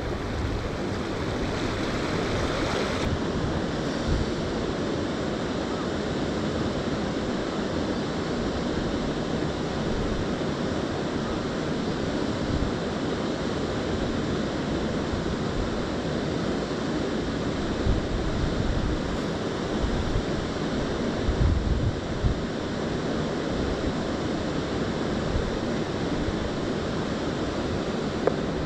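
Steady rushing of a river current, with occasional low buffets of wind on the microphone.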